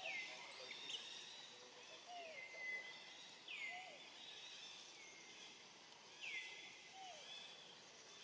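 Faint outdoor background with an animal call repeating every few seconds. Each call is a quick falling sweep that levels off into a held high tone, with fainter short lower chirps in between.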